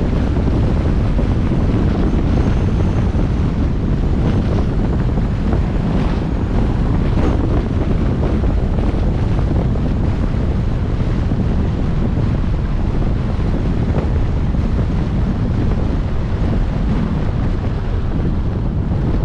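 Steady wind noise buffeting the microphone of a camera on a moving car, over a low, even rumble of the car driving along the road.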